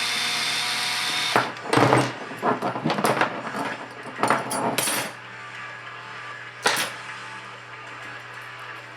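A drill runs steadily for about a second and a half while backing screws out of an RC crawler's chassis, then stops. Hard parts clatter and knock as they are handled and set down, with one more sharp knock a couple of seconds later.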